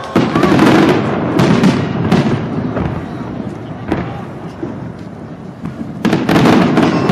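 Fireworks bursting overhead in a rapid volley of bangs and crackles, with echoing rumble between the shots. It is densest in the first second and a half and builds up again about six seconds in.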